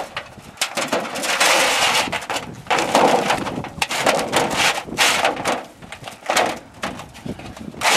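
Sheet-metal chimney pipe flashing being pushed and slid under asphalt roof shingles: irregular scraping and rubbing of metal on shingles, in a run of short bursts.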